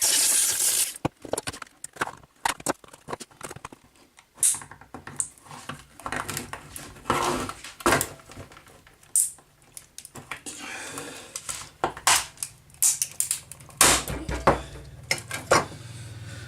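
Sawing through the plastic of a Dyson V6 vacuum's motor housing stops about a second in. Irregular clicks, taps and rattling follow as the plastic and metal parts are handled and pried apart.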